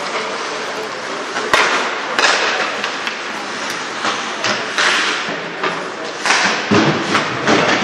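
Youth ice hockey play in a rink: skates scraping the ice, with sharp knocks of sticks, puck and boards, the loudest about a second and a half in, over a steady arena hubbub.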